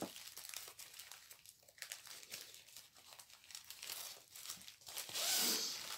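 Plastic packaging of a diamond painting kit crinkling and rustling as it is handled and opened, a run of small crackles, with a longer, louder rustle about five seconds in.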